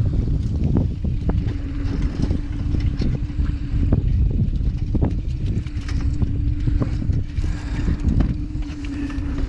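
Wind buffeting the microphone over a steady hum, with scattered clicks and rattles of a wire crab trap as crabs are pulled out of it.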